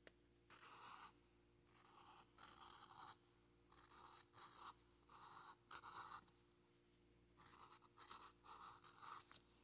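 Fine-point permanent marker drawing on paper: faint, short scratchy strokes, about a dozen in irregular bursts, with a run of quicker strokes near the end.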